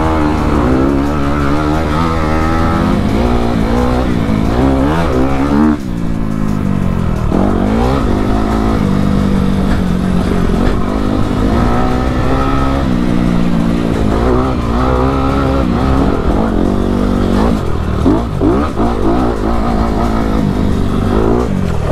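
Honda CRF250RX's single-cylinder four-stroke engine under way on a dirt trail, its pitch rising and falling as the throttle is worked and gears change. The revs drop sharply about six seconds in, then climb again.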